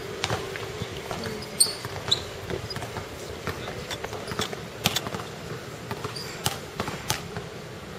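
Basketball bouncing now and then on an outdoor hard court, a few irregular sharp knocks, with a couple of short high squeaks.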